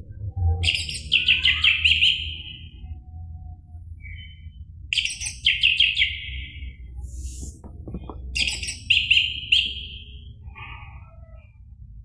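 Orange-headed thrush singing: three phrases of rapid, closely spaced high notes, each about two seconds long with short pauses between, over a low steady hum.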